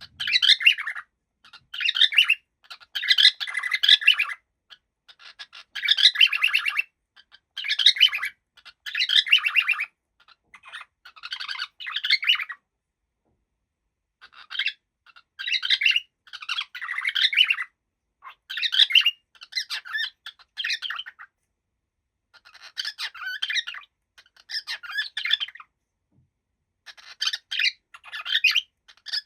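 Cockatiel chattering and warbling in bursts of rapid chirps and squawky notes, phrase after phrase with short pauses, one of about two seconds in the middle.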